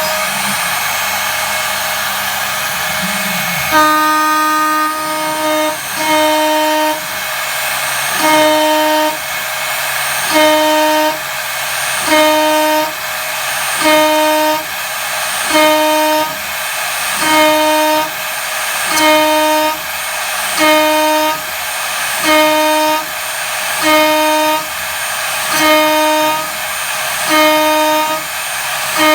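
CNC spindle with an 8 mm two-flute end mill side-milling aluminium at full 15 mm depth: a loud, pitched cutting whine. From about four seconds in, the whine comes and goes in even passes about every 1.7 seconds, as the cutter engages the stock on each 1 mm step.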